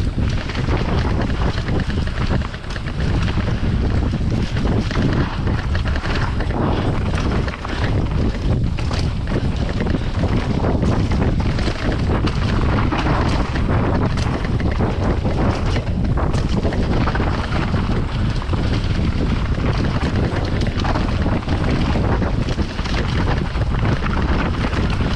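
Wind buffeting the microphone of a camera on a mountain bike riding downhill, with the bike clattering and knocking over rough trail.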